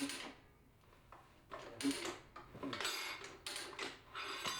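Irregular metal clicks and scrapes from a tire-changer stand and its tools as a motorcycle tire is worked off the wheel rim, with a short metallic ring near the end.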